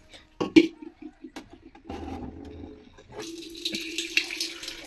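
An aluminium pot is knocked and set down with a couple of clanks. From about three seconds in, a thin stream of water from a water purifier's tap runs into the pot with a steady hiss and a hollow ringing tone from the metal.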